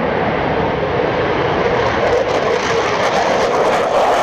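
Jet aircraft engine noise, like a fighter jet: a loud, steady rush of jet noise.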